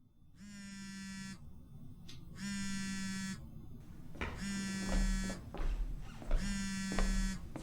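Mobile phone vibrating with an incoming call: four buzzes of about a second each, a second apart. Soft low thumps and clicks join in from about halfway.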